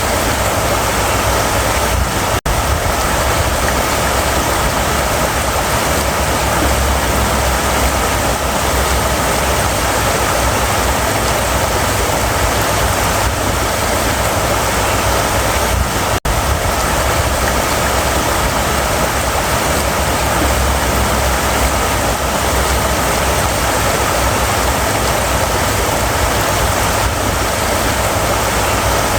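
River water running steadily, a constant full rushing noise with a strong low rumble. The sound cuts out for an instant twice, about two and a half seconds in and about sixteen seconds in.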